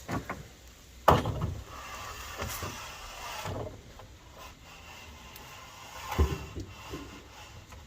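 Wooden knocks and scraping on a deck: a sharp clunk about a second in, then rubbing and shuffling, and a second heavy thud about six seconds in.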